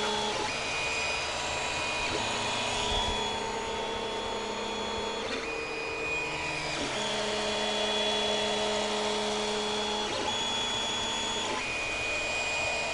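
Creality CR-10S 3D printer printing: its stepper motors whine in steady tones that jump to new pitches every second or few as the moves change, over the constant hiss of its cooling fans.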